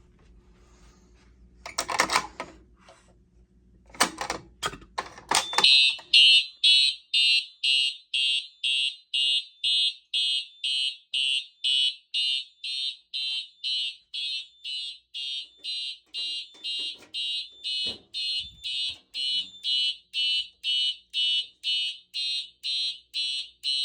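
A few clicks and knocks, then about six seconds in a Simplex TrueAlert fire alarm horn starts sounding in march-time code. It gives short, even blasts about two a second, a high, loud horn tone.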